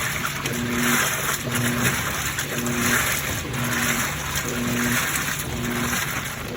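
Midea 13 kg washing machine agitating during its rinse: water sloshing in swells about once a second, each swell with a short motor hum.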